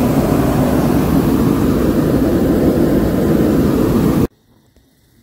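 Hot-air balloon's propane burner firing, a loud steady blast that cuts off abruptly about four seconds in.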